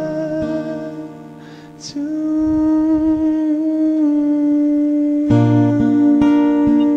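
Slow song with acoustic guitar. A held note fades out about a second in, and guitar chords strike again near the end.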